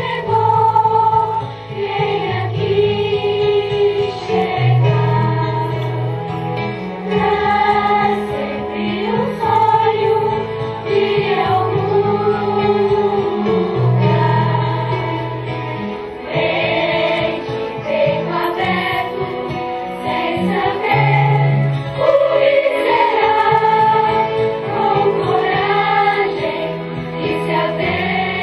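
Background music with a choir singing over held bass notes.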